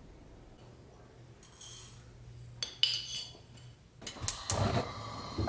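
Frying pan on a gas stove's cast-iron grate, clinking and knocking against the metal. About four seconds in it turns into a denser run of knocks and a rustling hiss as dry cumin seeds slide in the moving pan for toasting, after a few sharp clinks earlier on.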